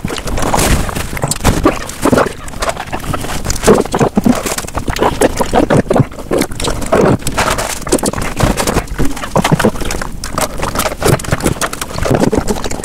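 Close-miked mukbang eating sounds: a man biting, sucking and chewing an ice pop, a dense run of wet mouth clicks and smacks.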